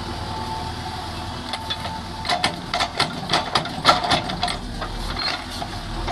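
JCB 3DX backhoe loader's diesel engine running steadily as the backhoe digs. Between about one and a half and four and a half seconds in, a quick run of sharp clacks and knocks, several a second, comes from the working arm and bucket as it swings and dumps its load of soil.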